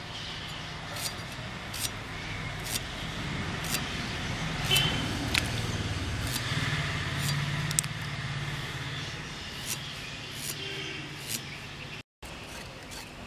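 Sweet potato skin being scraped and sliced off against an aruvamanai, a fixed curved iron blade, giving scattered sharp clicks and scrapes. Under it runs a steady low motor hum.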